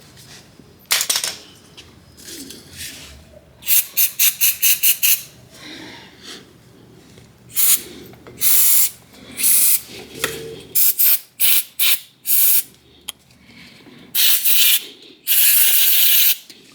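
Hand-tool work on the car: repeated short rasping strokes, with a quick run of about eight strokes near the start and longer rasps later.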